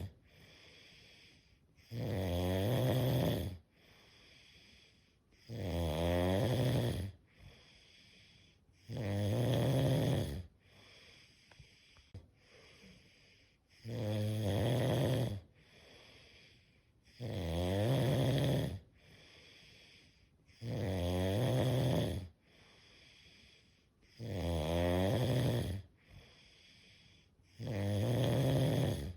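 Steady rhythmic snoring: eight snores, each about a second and a half long, come roughly every three and a half seconds, with quiet breathing between them.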